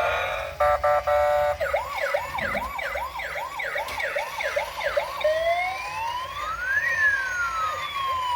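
Toy RC police car's electronic siren sound effect through its small speaker: a short stuttering beep, then a fast repeating yelp of about three sweeps a second, then a slow wail that rises and falls.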